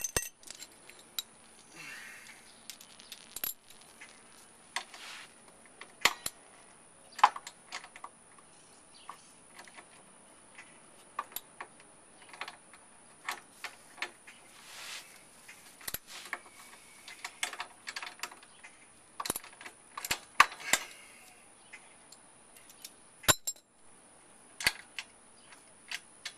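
Small metal hand tools and bolts clinking: irregular sharp clicks and ticks of a socket and nuts being handled while the side-step mounting bolts are worked loose by hand. A faint steady high whine runs behind.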